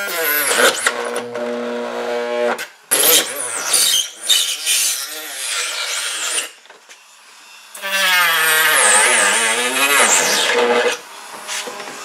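Dremel rotary tool running in spells as it trims away material, its pitch holding, then sagging and recovering as it bites. It stops for about a second a little past halfway, then runs again.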